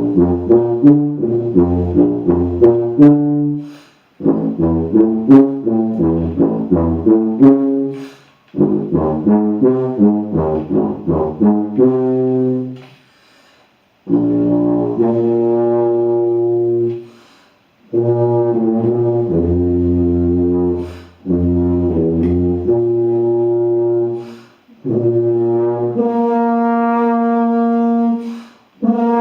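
Plastic B♭ tuba with rotary valves played solo: three phrases of quick, short notes separated by pauses for breath, then a string of long held notes that ends on a sustained note in its upper register.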